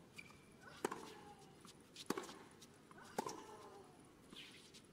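Tennis rally: a racquet strikes the ball three times, roughly once every second and a quarter, with a short grunt from the player after each hit.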